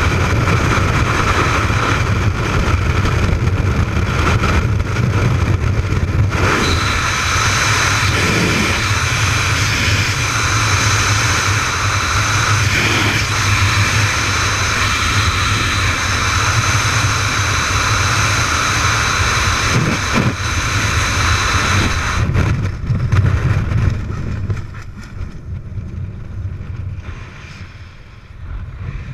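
Freefall wind rushing loudly over an action camera's microphone. In the last few seconds it falls off sharply as the parachute opens, leaving much softer wind under canopy.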